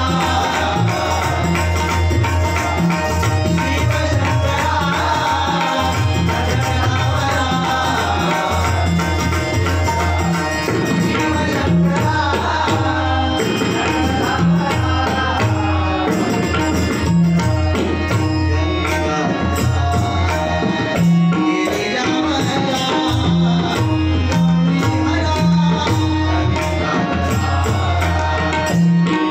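Live devotional bhajan music: tabla and pakhavaj play a steady, driving rhythm of deep drum strokes under a sung melody.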